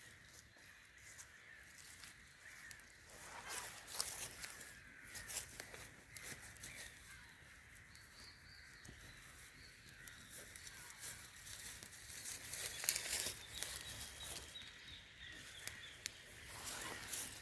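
Outdoor ambience of irregular rustling and crackling, with faint bird chirps.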